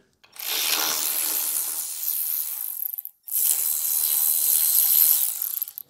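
Cordless electric ratchet running in two steady bursts of about two and a half seconds each, with a short break between them, as it backs out two 13 mm bolts. A faint steady whine runs through the second burst.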